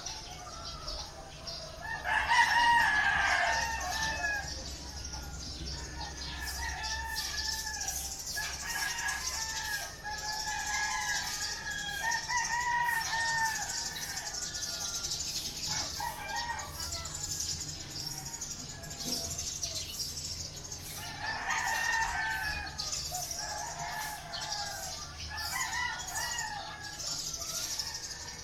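Several roosters crowing one after another and overlapping, the loudest crow about two seconds in and another strong one a little past twenty seconds, over a steady high hiss.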